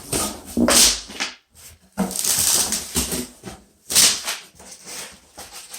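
Packing material from a shipping box being pulled out and handled, in bursts of rustling and scraping.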